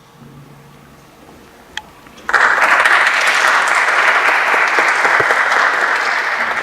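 Audience applauding. The clapping starts suddenly about two seconds in, after a quiet moment broken by a single click, and goes on steadily.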